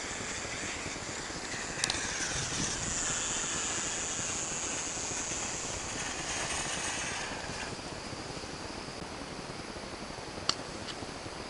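Golden Flowers ground fountain firework spraying sparks with a steady hiss that fades about eight seconds in, as the fountain burns out. Two sharp cracks, one about two seconds in and one near the end.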